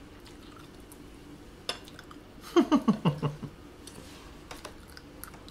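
Knife and fork clinking lightly against a plate a few times, with a short burst of laughter about two and a half seconds in.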